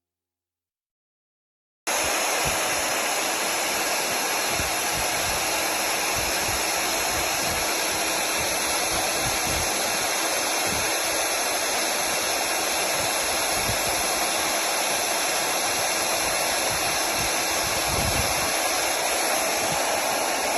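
Electric magnetic core drill's motor running steadily with an even, loud whirring hiss, starting abruptly about two seconds in.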